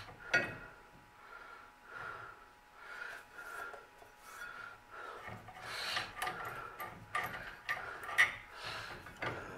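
Brake caliper and its metal hardware being handled and fitted by hand: a run of short, soft rubbing strokes, then scraping and light metallic clicks in the second half.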